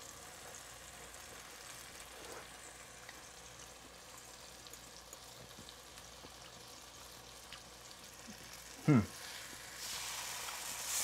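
A fig half frying in caramelizing sugar in a hot wok, sizzling faintly and evenly. The sizzle grows louder and hissier near the end.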